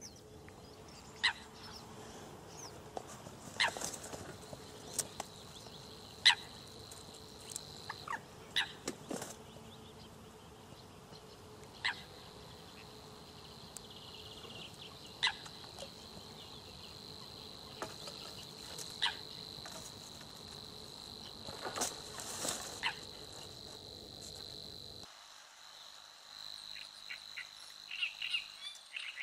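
Outdoor ambience at a reedy pond: a steady thin high whine with short, sharp bird calls every few seconds. Near the end the chirping becomes quicker and busier.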